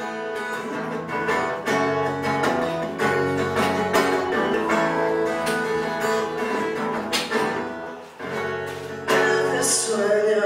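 Acoustic-electric guitar played live through a PA. A male voice comes in singing about nine seconds in.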